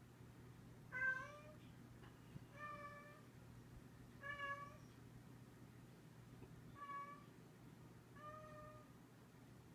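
A cat meowing faintly five times, short calls a second or two apart, over a faint steady low hum.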